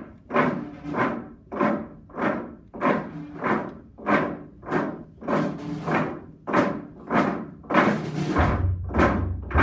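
Percussion ensemble playing a piece that opens with a steady pulse of single struck, ringing notes, about three every two seconds. A low sustained rumble, like a timpani roll, comes in near the end.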